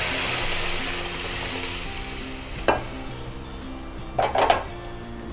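Hot tempering oil sizzling as boiled drumstick leaves and moong dal are poured into it, the sizzle fading away. A sharp metal clink comes about two and a half seconds in, and a short run of clinks near the end.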